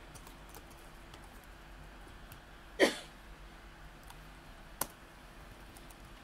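Faint, scattered clicks of a laptop keyboard being typed on. A short, louder noise comes about three seconds in, and a single sharp click about two seconds later.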